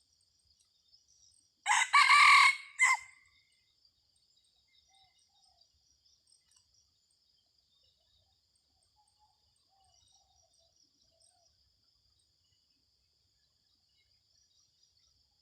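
A red junglefowl rooster crows once, a short crow of about a second with a brief break before its final note. A faint steady high insect buzz runs underneath.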